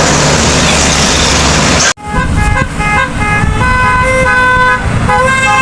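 About two seconds of loud rushing noise that cuts off abruptly, then a bus's 'basuri' musical air horn playing a quick melody of several notes sounded together, over the rumble of the bus engine.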